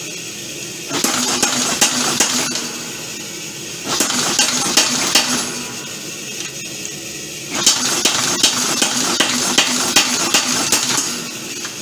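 Homemade power hammer striking leaf spring steel. The metallic blows come in three runs of a few strikes a second, with short pauses between the runs.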